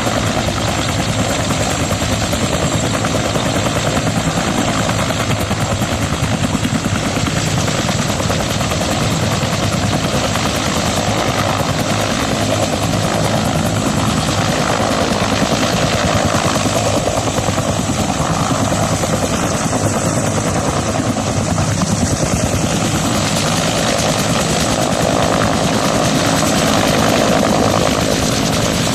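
Water-bombing helicopter running with a steady rotor beat that holds throughout and swells slightly near the end.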